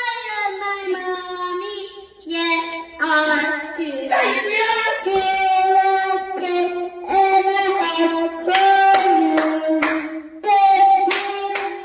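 Children singing a song in long held notes, with scattered hand claps along the way.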